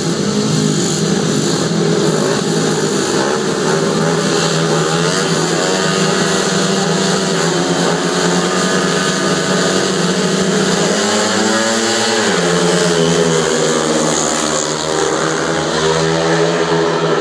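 Several speedway motorcycles' single-cylinder methanol engines revving at the start line. About twelve seconds in the pitch climbs, then drops sharply as the bikes leave the start and pull away.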